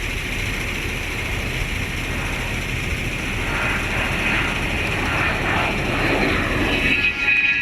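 Aircraft engine noise as a plane passes, its pitch sliding downward as it goes by from about halfway through.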